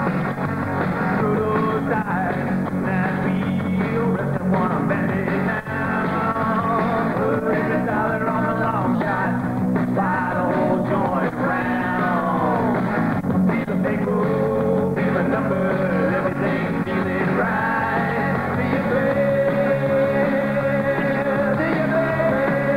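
Rock band playing a song, with electric guitar, bass and drums under a singing voice.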